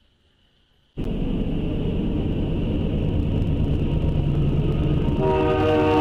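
An approaching freight train's diesel locomotive, cutting in suddenly about a second in with a heavy low rumble. About four seconds later its air horn starts sounding, a steady multi-note chord over the engine rumble.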